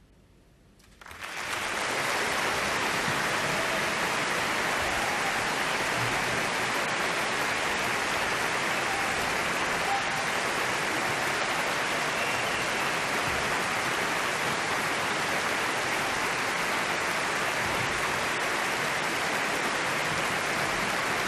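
An audience applauding: after a second of near silence the clapping breaks out all at once and then holds steady.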